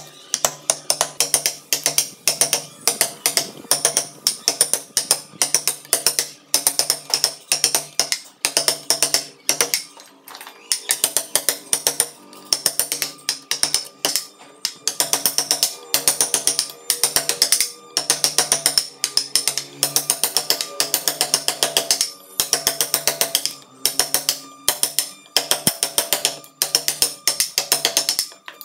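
Wooden mallet striking a carving chisel into a log in fast runs of sharp knocks, several a second, with brief pauses between runs.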